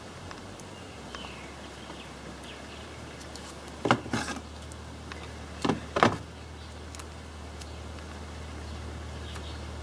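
Black electrical tape being pulled off the roll and wrapped around a spark plug wire: two short, sharp rips about four and six seconds in, over a low steady hum.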